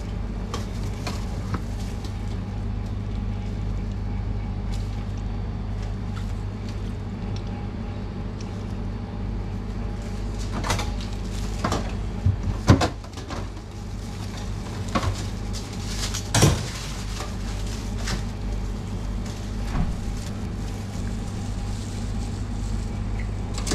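Steady low hum of shop machinery at a sandwich prep counter. In the middle there are a handful of sharp knocks and clicks as sauce bottles and containers are handled.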